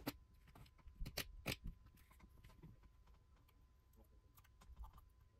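Faint handling sounds of masking tape and a hobby knife: a few quick light clicks and ticks in the first two seconds as tape is picked up and placed on a model locomotive's cab, then softer ticks near the end.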